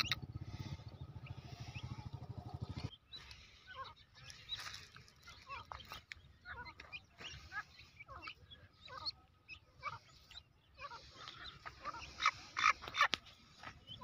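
Grey francolin chicks giving many short, high chirping calls, scattered and overlapping, busiest near the end. A low rumble under the first few seconds stops abruptly.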